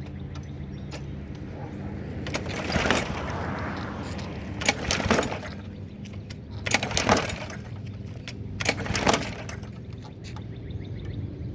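Weed Eater push mower's recoil starter pulled four times, about two seconds apart, each pull a brief whirring rush, and the small engine does not catch on a cold start; the owner fears it is flooded.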